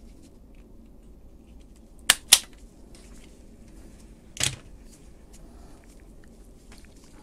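Felo pistol-grip wire stripper snapping twice in quick succession about two seconds in, as it clamps and strips the insulation off the end of a power-cord conductor. A duller knock follows a couple of seconds later.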